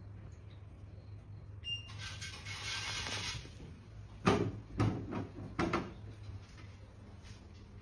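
A brief rustle, then a plastic cat flap knocking four times as it swings shut behind a kitten, the first knock the loudest.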